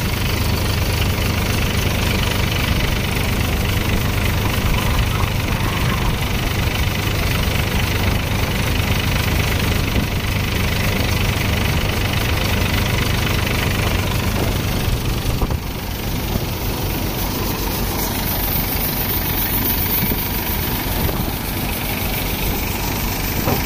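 Mahindra Yuvo tractor engine running steadily under load, powering a groundnut thresher, with the thresher clattering as groundnut plants are fed into it.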